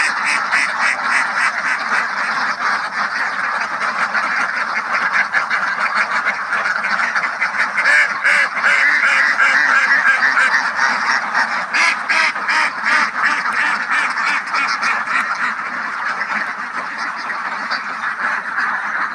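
A flock of ducks quacking, many calls overlapping without a break, a little louder midway.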